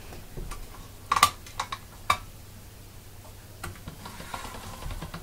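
A few sharp clicks and light taps from a hand-cranked pasta machine as it is handled and set for rolling polymer clay. The loudest click comes about a second in and another about two seconds in.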